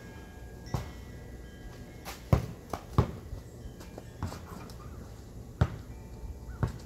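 A basketball thudding several times as it is dribbled and shot at a hoop, in separate sharp hits, the loudest about two and a half and five and a half seconds in.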